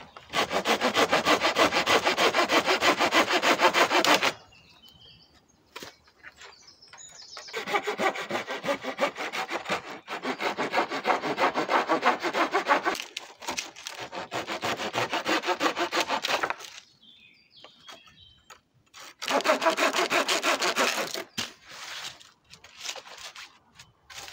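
Hand saw cutting through the overhanging ends of wooden rafter poles. It goes in three bouts of back-and-forth strokes, the middle one the longest, with short pauses between them.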